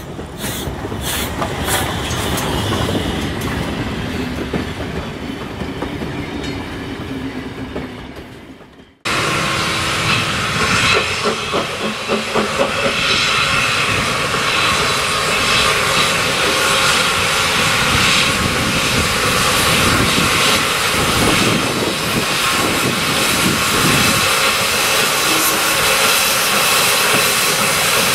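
Small steam tank locomotive, SECR P class No. 178, moving slowly with steam hissing, its wheels clicking over pointwork. Before it, a separate rail sound under the title card cuts off abruptly about nine seconds in.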